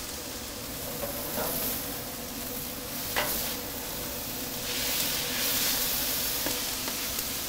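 Asparagus and onions sizzling on a hot flat-top griddle in butter, with metal spatulas scraping and tossing them across the steel plate. The sizzle gets louder about five seconds in as the vegetables are stirred.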